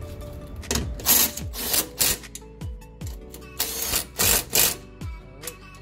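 Cordless impact driver with a socket, run in several short bursts as it tightens the running board bracket bolts. Background music plays under it.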